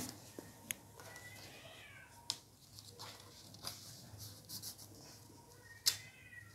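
A cat meowing faintly twice, once about a second in and again near the end. Between the meows come a few light taps and rustles of paper being folded and pressed by hand.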